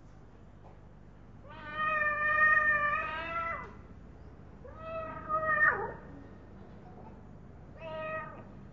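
Recording of a domestic cat meowing, played back through a small player: three meows, first a long one, then one that drops in pitch at its end, then a short one near the end.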